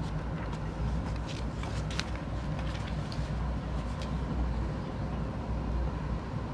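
Steady low background rumble with a faint hum, and a few short clicks and rustles about one to two seconds in and again near four seconds, as the paper sheet on the clipboard is swapped for the next one.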